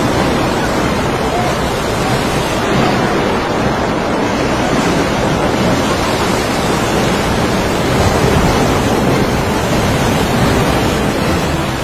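Loud, steady rushing of wind and water, like a violent storm.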